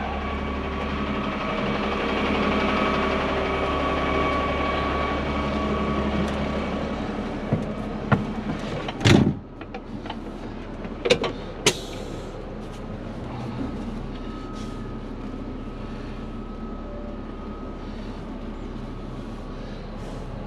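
Snow blower truck's diesel engine idling steadily. About nine seconds in, a few knocks end in a cab door slamming shut, and the engine is then heard as a quieter hum from inside the cab. A couple of sharp clicks follow a few seconds later.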